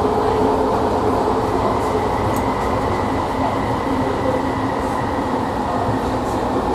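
Running noise inside a Bombardier ART single-car light-rail train, a linear-motor car on steel wheels, heard in motion. A steady rumble of wheels on rail runs throughout, with a steady high tone above it.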